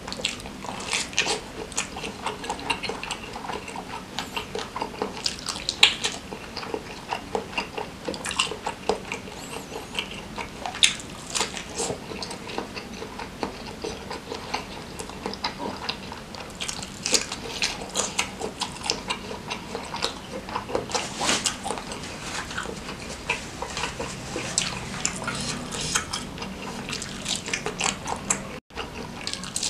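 Close-up wet chewing and lip smacking of a juicy meatball stuffed with minced meat, with a dense, irregular run of short wet clicks and smacks, several a second.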